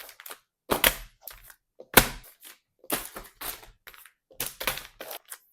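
A package of wipes being handled: an irregular run of sharp crackles and knocks, the sharpest about two seconds in.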